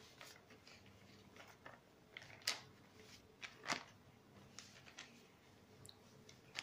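Faint scattered clicks and light knocks, about a dozen, in a quiet small room, the loudest about two and a half and nearly four seconds in.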